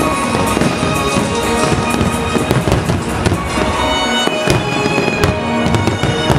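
Aerial firework shells bursting in quick succession, a dense run of bangs and crackles with several sharp reports in the second half, over loud music with sustained tones.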